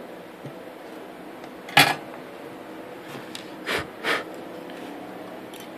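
Soldering iron being handled and set back into its metal stand on a workbench: one sharp click about two seconds in, then two softer knocks as the iron goes into the holder, over a steady low hum.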